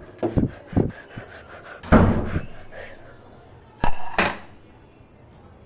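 Several sharp knocks and clatters, as of a plate and utensils being handled. The loudest is a longer, noisier clatter about two seconds in, and there are two more knocks near four seconds.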